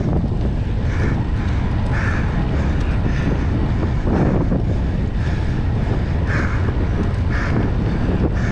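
Wind buffeting the microphone of a road bicycle ridden hard, a loud, steady low rush with short puffs coming about once a second.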